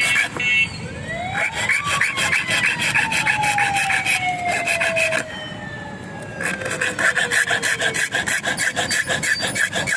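A metal file rasping back and forth on a key blank in quick, even strokes, with a short pause midway. A siren-like tone in the background rises and then slowly falls.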